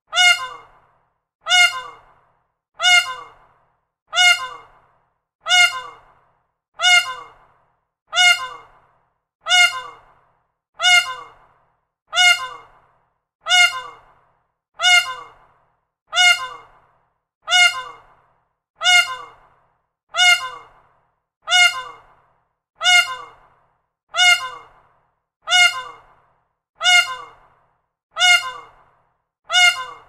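A peacock's short, honking call, repeated identically a little more often than once a second, like a looped recording. Each call starts sharply, dips slightly in pitch and fades within about half a second.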